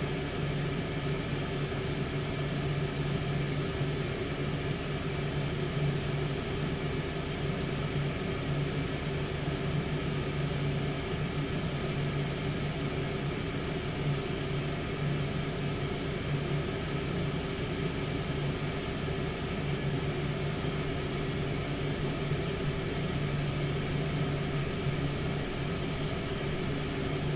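Tower air fryer oven running mid-cook, its fan motor giving a steady hum over a hiss of circulating air.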